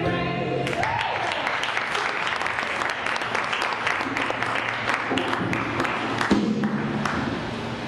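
A choir's final sung chord cuts off well under a second in, and audience applause follows, a steady dense clapping.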